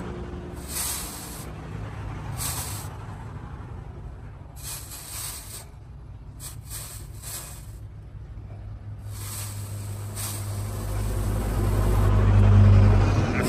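Hot steel cleaver blade, cut from a tractor disc plough, hissing in short repeated bursts as it is dipped in a water trough to cool. A low rumble underneath grows louder toward the end.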